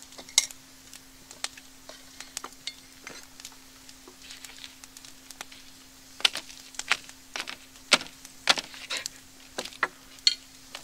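Wood campfire crackling and popping in irregular sharp snaps, with a faint steady hum underneath.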